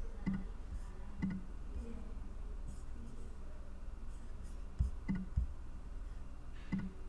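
A few sharp, scattered clicks from someone operating a computer, over a faint steady room hiss.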